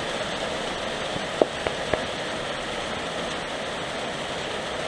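Heavy rain falling steadily, an even hiss. Three short knocks come close together about a second and a half in.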